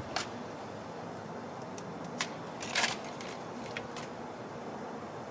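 A black squirrel's claws on vinyl siding and a window frame as it scrambles and leaps: a few short scratches and clicks, the longest a brief rasp about three seconds in, over a steady background hiss.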